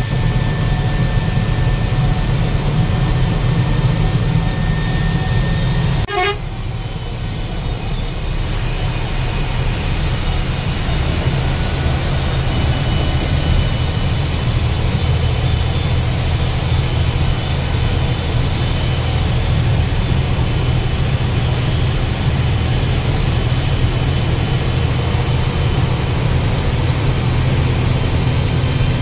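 Bus travelling on the road: a steady, loud low rumble of engine and road noise, with a sharp click about six seconds in followed by a briefly quieter stretch.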